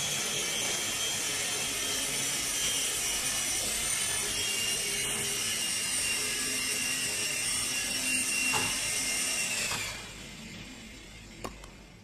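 Electric motor and rotor blades of a mini infrared remote-control helicopter whirring steadily with a high whine. The whine dips and cuts off about ten seconds in, followed by a single click.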